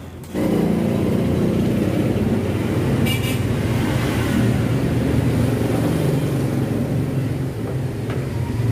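Car engine running steadily, starting abruptly about half a second in, with a short faint squeak about three seconds in.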